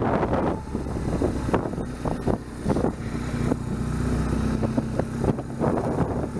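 BMW R1200GS boxer-twin motorcycle engine running on the road, with wind rushing over the microphone. Its note settles to a steady hum about halfway through.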